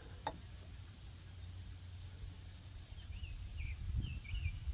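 A small bird chirping in short wavering notes, starting about three seconds in, over a steady low rumble, with a single sharp click just after the start.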